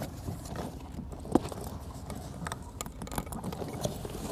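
Seat straps and their metal clips being handled and fastened to the kayak's D-rings: scattered light clicks and rattles, with one louder knock about a second and a half in.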